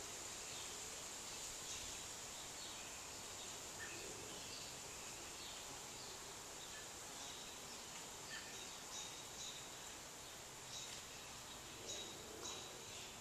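Faint outdoor ambience: a steady high-pitched insect drone with short bird chirps, which come more often in the second half.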